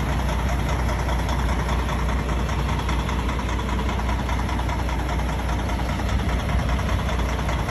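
Kenworth T680 semi truck's diesel engine idling steadily, with a deep low hum.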